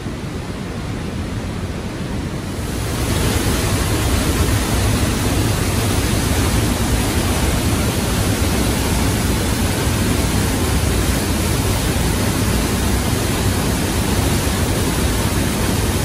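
Trümmelbach's glacier-fed waterfall thundering through its rock gorge inside the mountain: a steady, dense rush of falling water that grows louder and brighter about two and a half seconds in.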